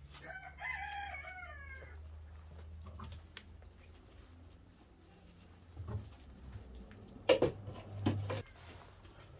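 A rooster crows once near the start, a wavering call just under two seconds long. Later come a few sharp knocks and clatters, the loudest a bang about three-quarters of the way through.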